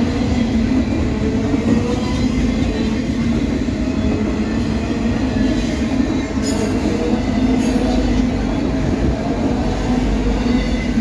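Freight train's cars rolling past close by: a loud, steady rumble of steel wheels on the rails.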